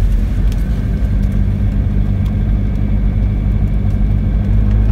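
Mazda Miata (NB) 1.8-litre four-cylinder engine running steadily as the car drives, heard from inside the cabin. The car is pulling on a freshly replaced clutch that no longer slips.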